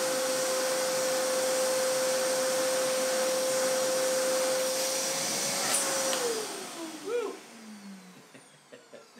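Kärcher WD3 wet and dry vacuum cleaner running with a steady whine and rush of air, then switched off with a click about six seconds in, its motor winding down with a falling pitch.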